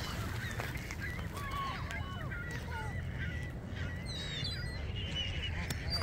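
A mixed flock of Canada geese, gulls and mallards calling over one another in many short, overlapping calls, with geese honking, over a low steady rumble.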